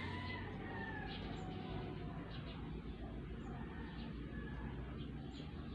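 Pencil drawing lines on paper along a plastic set square, as faint short scratching strokes, over a steady low hum. Faint distant animal calls come through near the start and again around two seconds in.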